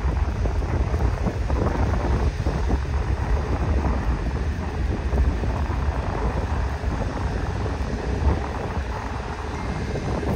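Steady low rumble of jet airliner engines across the airfield, mixed with wind buffeting the microphone.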